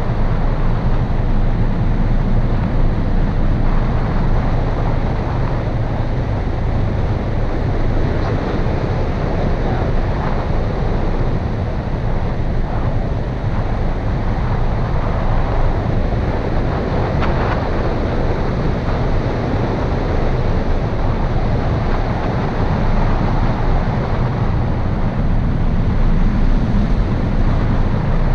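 Airflow rushing steadily over the frame-mounted camera's microphone of an engineless hang glider in flight: a loud, even deep rumble of wind.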